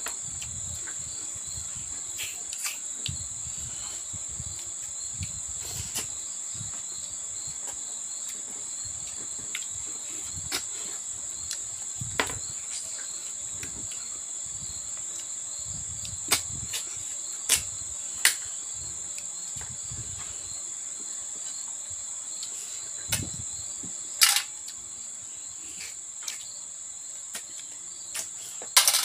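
Crickets chirping steadily, with close-up hand-eating sounds over them: soft chewing and now and then a sharp click against a metal plate, the loudest a little past three-quarters through.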